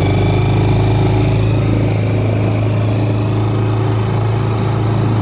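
New Suzuki DF6A 6 hp four-stroke outboard motor running steadily at a constant low speed, kept gentle while it is broken in.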